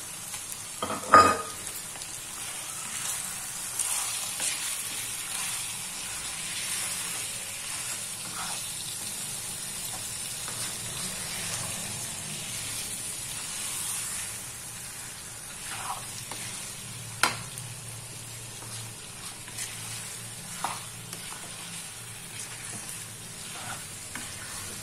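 Chicken pieces, tomatoes and spices sizzling in a karahi over a gas flame as they are stirred with a long spoon, a steady high hiss. A few sharp knocks of the spoon against the pan, the loudest about a second in.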